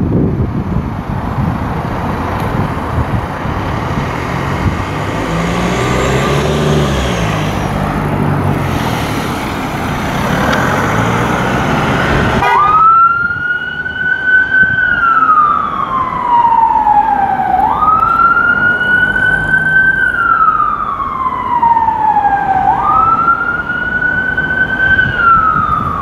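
Car engine and road noise as a police Volvo V60 Cross Country pulls away. About halfway through this changes abruptly to the car's siren on a slow wail: a quick rise, a held note, then a long fall, repeating about every five seconds, three times.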